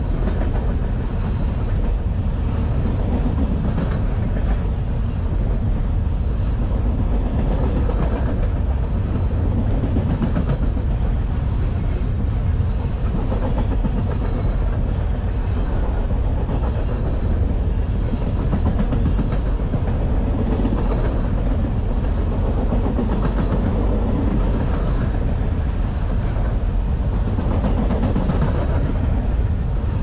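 Loaded container cars of a freight train rolling past: a steady rumble of steel wheels on the rails, with faint repeated clicks.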